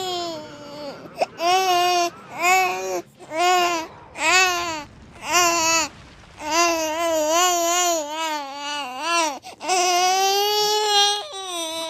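Infant crying loudly, in a run of short wails with quick breaths between them, then longer wavering wails from about six seconds in.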